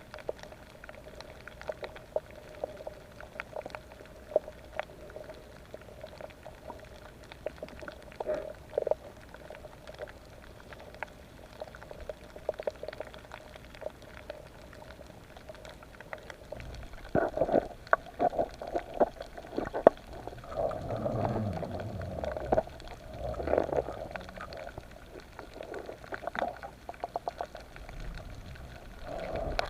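Underwater sound on a reef dive: a scatter of sharp clicks and crackles over a steady hum, then, from a little past halfway, louder bubbling and gurgling of air bubbles.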